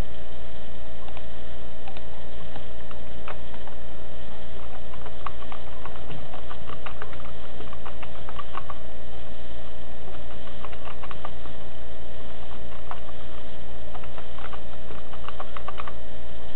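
Computer keyboard being typed on: irregular runs of key clicks with short pauses between words, over a steady electrical hum.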